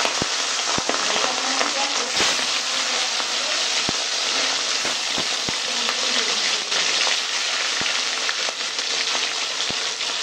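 Pieces of katla fish, rubbed with salt and turmeric, frying in hot oil in a metal kadai: a steady sizzle with scattered crackles and pops of spattering oil.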